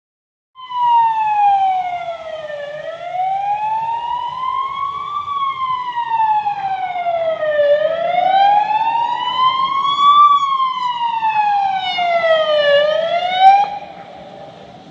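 Emergency-vehicle siren in a slow wail, its pitch sliding down and up about every two and a half seconds, that cuts off abruptly near the end, leaving a faint low background hum.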